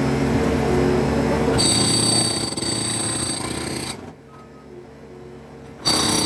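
Bobcat S450 skid steer's diesel engine running hard during concrete demolition, with a high metallic squeal joining in about one and a half seconds in. The sound drops away abruptly for about two seconds and comes back loud near the end.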